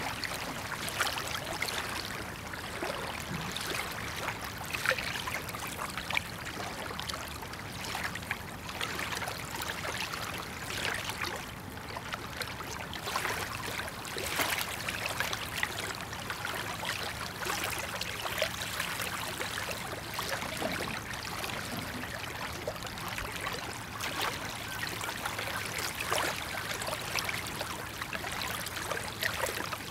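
Small waves lapping and trickling at the water's edge: a steady, irregular splashing wash.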